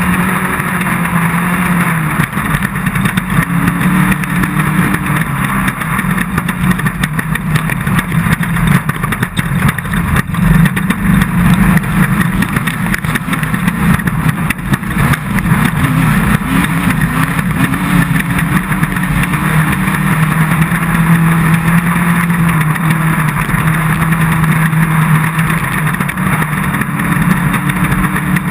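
Off-road race car engine running hard and continuously, its pitch rising and falling as the throttle is worked, over a steady haze of rattling and road noise.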